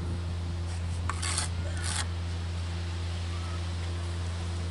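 Steel brick trowel scraping mortar on a freshly laid brick, two short scrapes about a second and two seconds in, over a steady low hum.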